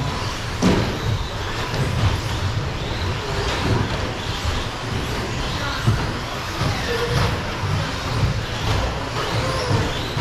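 Several electric radio-controlled short course trucks racing on an indoor carpet track: a steady mix of motor whine rising and falling with throttle and tyre noise, echoing in the hall. A few sharp knocks come from trucks hitting each other or the track boards, the loudest about six seconds in.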